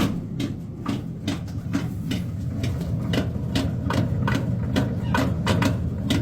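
Maytag clothes dryer running with a steady low hum and a rhythmic knocking about three times a second: the strange noise that is traced to a faulty blower wheel.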